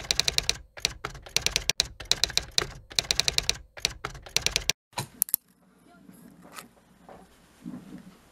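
Typing sound effect: rapid key clicks in bursts of about a second each with short gaps, stopping about five seconds in. A few single clicks follow, then only a faint low background.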